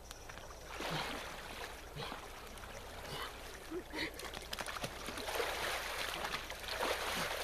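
Water splashing and sloshing in an ice-hole as a bather wades in and ducks fully under, in short bursts and then a longer, louder splash a few seconds in.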